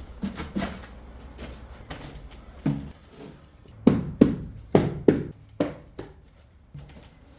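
A series of irregular knocks and thuds, about a dozen, loudest and closest together about four to five seconds in, over a low steady hum.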